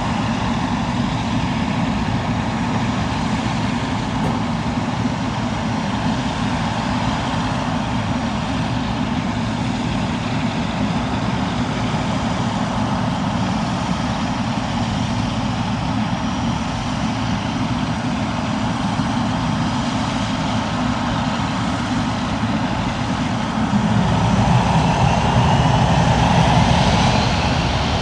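Boeing 777F jet engines running with a steady rushing noise that grows louder about 24 s in. Near the end a rising whine joins it as the engines spool up for the take-off roll.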